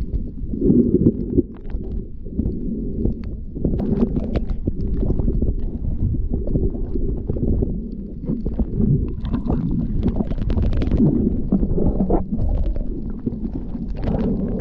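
Muffled underwater rumble of moving water, heard through a camera's waterproof housing, with scattered faint clicks and crackles throughout.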